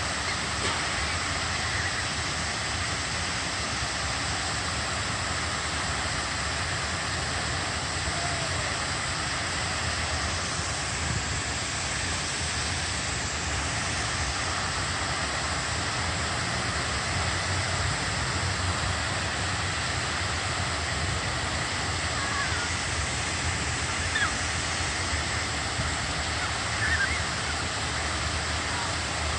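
Large river fountain jets spraying high and falling back onto the water: a steady, unbroken rushing hiss of water and spray.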